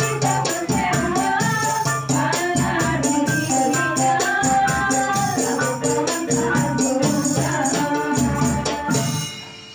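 Women's qasidah group singing sholawat together over an electronic keyboard, with a tambourine jingling in steady rhythm. The music fades out near the end.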